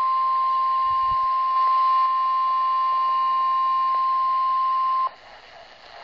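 NOAA Weather Radio warning alert tone, a single steady loud beep near 1,050 Hz from a Midland weather radio's small speaker, cutting off sharply about five seconds in. It signals that a warning broadcast, here a severe thunderstorm warning, is about to follow.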